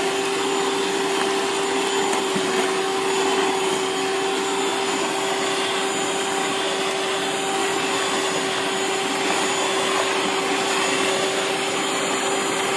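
Handheld electric mixer running steadily at one speed, its beaters churning thick butter-cake batter in a stainless steel bowl. It gives a constant motor hum over an even rushing noise.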